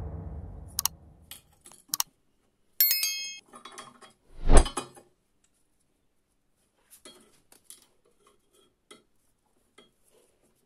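Steel measuring tools handled on a wooden workbench: a few light clicks and a ringing metal clink, then a louder knock as a tool is set down on the wood about four and a half seconds in. Faint scattered clicks follow.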